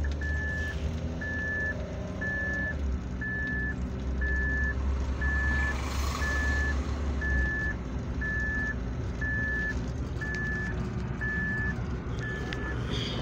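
An electronic warning beeper sounds at a steady pitch about once a second, over a low engine rumble that drops away about seven and a half seconds in.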